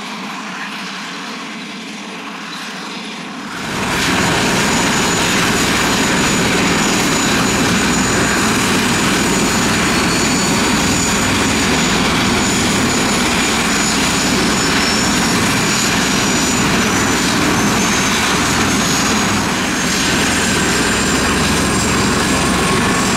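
Airbus H145 rescue helicopter starting up: a steady high turbine whine, then about four seconds in the sound jumps much louder as the rotor comes up to speed. The heavy rotor noise and rush then hold steady.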